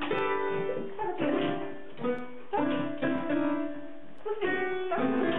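Piano keys pressed by a beagle's paws and nose: about five jumbled clusters of notes struck at uneven intervals, each left to ring.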